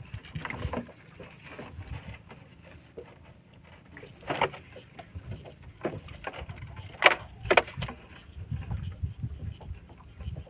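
Crabs being worked out of a nylon mesh net by hand: light rustling and crackling of the net, with three sharp clacks of hard crab shell, the loudest about seven seconds in, over a low rumble.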